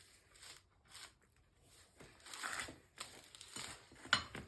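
Tire irons levering a dirt-bike tire's rubber bead over the rim: scattered scraping and rubbing, with a sharp click near the end.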